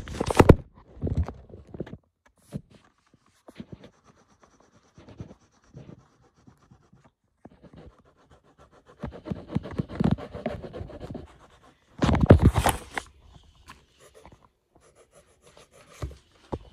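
Handling noise: fingers rubbing and knocking against a phone's microphone in uneven bursts, loudest about two thirds of the way through.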